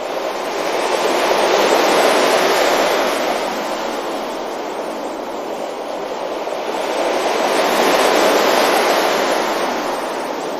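Ocean waves washing onto a beach: the surf swells twice, about two seconds in and again around eight seconds, each time rising and then fading back.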